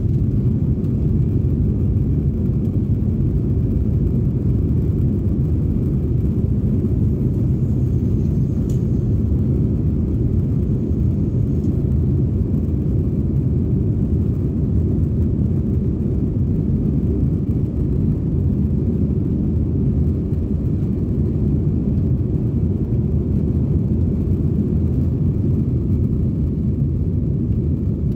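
Cabin sound of an Airbus A321-231 on its takeoff roll: its IAE V2500 turbofans at takeoff thrust and the wheels running on the runway make a steady, loud low rumble.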